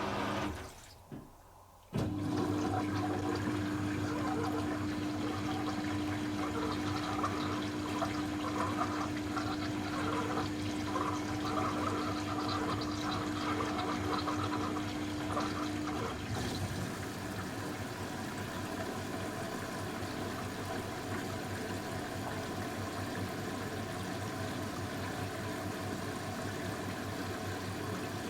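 Beko WTB841R2W front-loading washing machine running a cycle, water rushing through it with a steady hum. The hum stops about halfway, leaving the water noise on its own.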